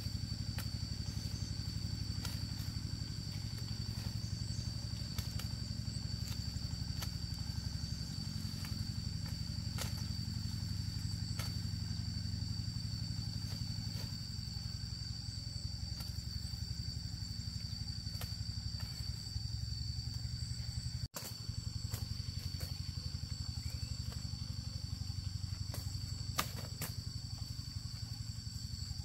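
A motor engine running steadily at an even pace, with a steady high thin tone above it.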